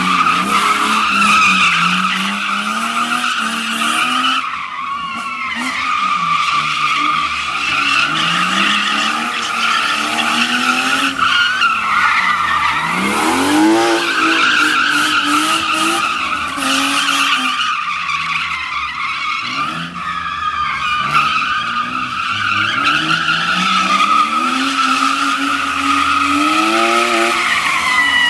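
BMW E36 drift car sliding sideways on concrete: the rear tyres squeal without a break while the engine revs rise and fall again and again as the driver works the throttle.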